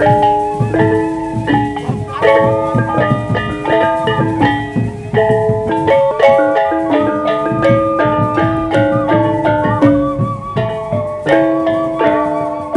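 A Sasak gendang beleq gamelan ensemble playing: bronze gong-chimes struck in quick, ringing interlocking notes over drum and cymbal hits, with a wavering higher melodic line in the second half.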